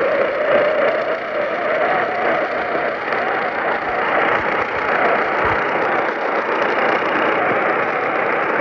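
Steady, loud radio static hiss from a weakly received broadcast, with no speech or alert tones.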